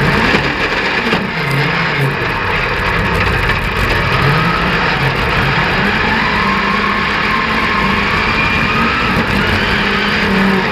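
Dirt-track racing buggy's engine heard from an onboard camera, running hard with its note rising and falling as it accelerates and lifts through the turns, over steady wind and track noise.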